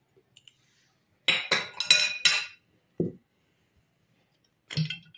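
A metal spoon clinking several times in quick succession against a stainless-steel pot, knocking curry powder off into it, then a single dull knock. A few more clinks follow near the end.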